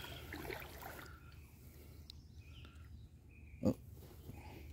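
Quiet ambience aboard a small boat on calm water, broken by a single short, dull thump about three and a half seconds in.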